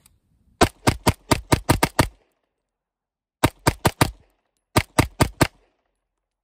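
Springfield Prodigy double-stack 1911 (2011-style) pistol fired in rapid strings: about nine quick shots, a pause, then two faster strings of four, at around five shots a second.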